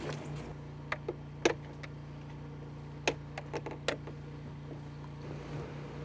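Irregular light clicks and knocks from hand work inside insulating concrete forms, about eight over a few seconds, over a steady low hum.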